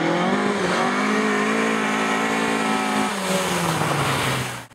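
Rally car engine at high revs as the car comes up the stage, holding a steady note, then the revs drop about three seconds in. The sound cuts off suddenly near the end.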